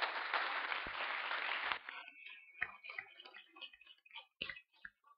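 A round of applause from a seated group that cuts off suddenly about two seconds in. It is followed by scattered small clicks and knocks.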